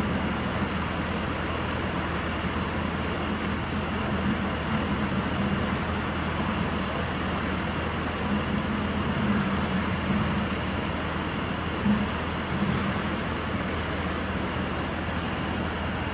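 Kobelco SK200 hydraulic excavator's diesel engine running steadily under load as the machine swings and works its boom, with a short knock about twelve seconds in.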